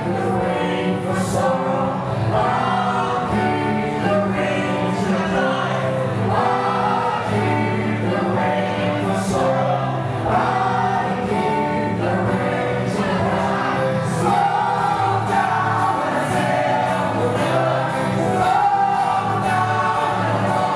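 Folk band playing and singing: acoustic guitars under several voices singing long, held notes together.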